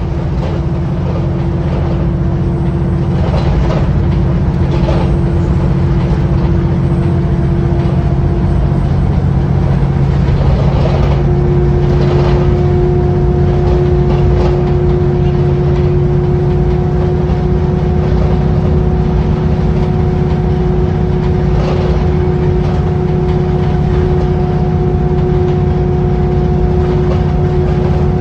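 A Wright Pulsar 2-bodied VDL single-decker bus running steadily, heard from on board: a continuous low engine hum with a steady whine that steps up a little in pitch about eleven seconds in. A few brief knocks come through at intervals.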